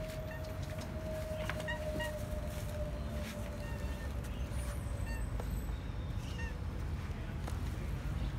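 Steady low outdoor background rumble, with a faint steady hum that fades out around the middle and a few brief high chirps.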